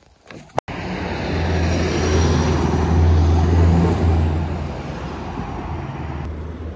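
A heavy vehicle's engine running as it drives past on the street. It swells to its loudest about three seconds in, then eases off.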